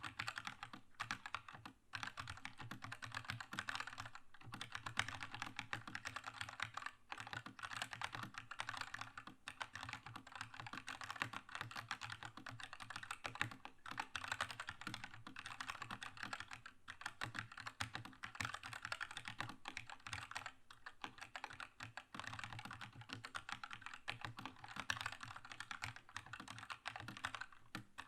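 Fast, continuous typing on a Keychron K2 mechanical keyboard with red linear switches: a dense stream of key clacks with a few short pauses.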